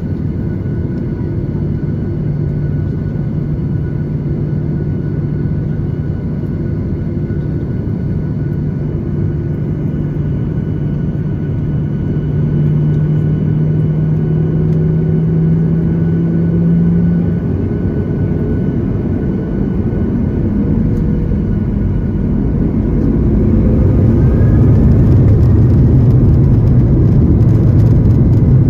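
Cabin noise of a Boeing 737-8 MAX taxiing, its CFM LEAP-1B turbofans running with a steady low hum and rumble. In the last few seconds the rumble grows louder.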